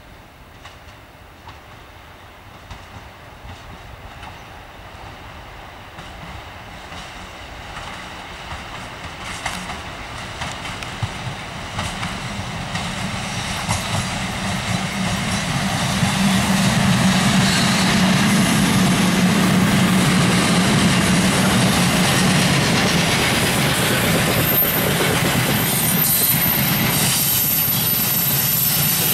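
2ES10 electric locomotive with a freight train approaching and passing, growing steadily louder for about fifteen seconds and then staying loud, with a steady hum and the clatter of the wagon wheels over the rail joints. A thin high whine joins in near the end.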